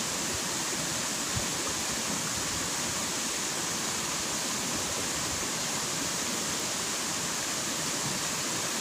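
Fast-flowing river water rushing over rocks and small rapids: a steady, even rush.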